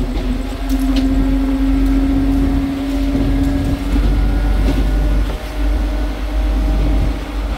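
Rail inspection maintenance vehicle running along the track, heard from its open deck: a heavy steady rumble with a droning engine tone that is strongest in the first few seconds, plus a few scattered clicks.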